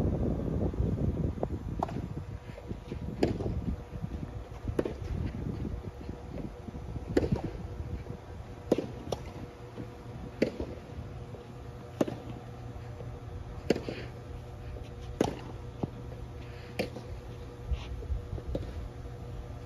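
Tennis rally: sharp pops of a tennis ball struck by rackets and bouncing on the court, about every one and a half seconds. Wind rumbles on the microphone for the first couple of seconds.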